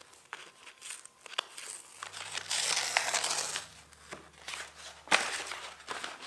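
Paper and plastic rustling and crinkling as a taped masking piece is lifted off a spray-painted PVC sign part and the paint-spattered paper sheet beneath is handled, with scattered light clicks. The densest rustling comes about two to three seconds in, and a sharp click about five seconds in.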